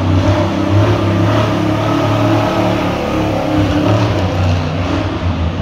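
Bus-bodied monster truck's engine running with a deep, steady drone, revving up and down as the truck drives close past.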